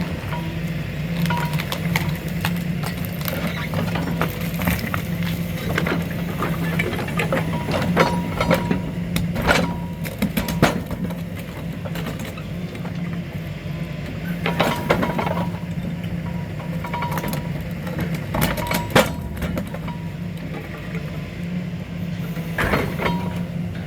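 Excavator engine running steadily while its hydraulic crusher attachment bites into material, with scattered sharp cracks and clinks of breaking debris.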